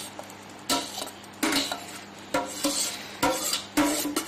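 Metal spoon scraping and clinking against the inside of a stainless steel pot as thick custard pudding is scraped out, in about seven short strokes spaced half a second to a second apart.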